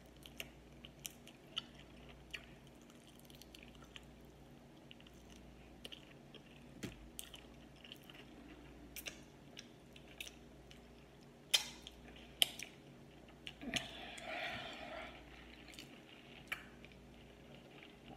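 Faint close-up eating sounds: chewing with wet lip smacks and scattered small clicks as a sauced chicken wing is gnawed and the fingers licked. A few sharper smacks come about two-thirds of the way in, then a longer wet, noisy sound.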